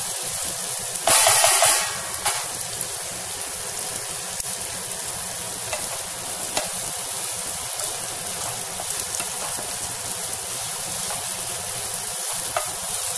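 Chopped onions and green chillies sizzling in hot oil in a non-stick pan, stirred with a wooden spatula, frying towards golden brown. A kitchen chimney runs steadily behind it, with a brief louder burst of noise about a second in and a few light spatula taps.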